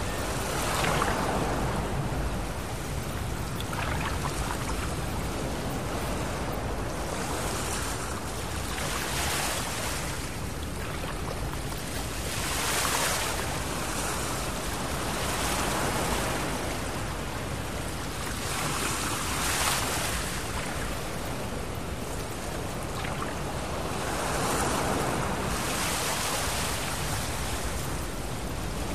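Ocean surf breaking and washing up a sandy beach, the rush swelling and fading every few seconds.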